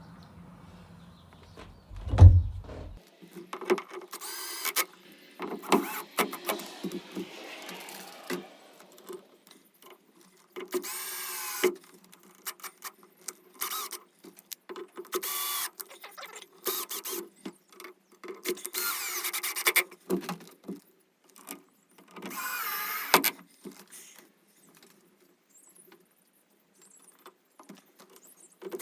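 Cordless drill driving screws in short bursts of motor whine, with clicks and knocks of handling between bursts.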